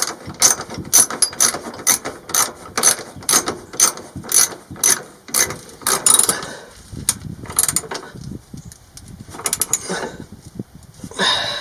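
Ratchet wrench clicking in steady strokes, about two a second, as a nut is tightened onto a tie-down anchor bolt; the strokes stop about six seconds in, and a few scattered clinks follow near the end.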